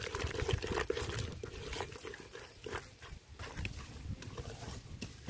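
A hand squishing and kneading wet masala paste in a steel bowl, making many small, quick wet clicks and squelches.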